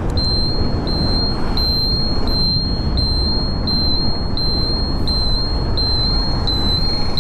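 Motorcycle turn-indicator buzzer beeping at an even pace, about three high beeps every two seconds, as the indicator flashes for a right turn. Steady low road noise from the moving bike runs underneath.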